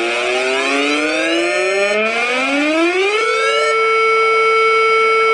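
Loud siren wail made of several overlapping tones sweeping upward, which level off into a steady held tone about three seconds in.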